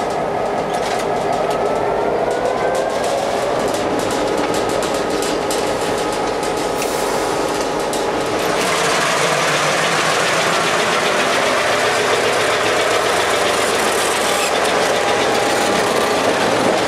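Locomotive running, heard from inside the cab: a steady mechanical din with a faint rising whine in the first few seconds and quick clicking. About eight and a half seconds in it changes to a louder, more even rushing noise.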